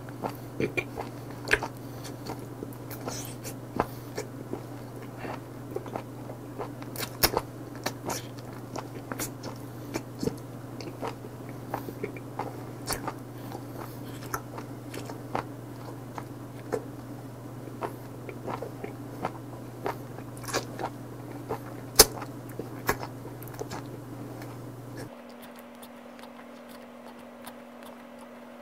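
A person chewing and smacking on live octopus, with irregular sharp mouth clicks several times a second. Under it runs a steady low hum that stops about 25 seconds in.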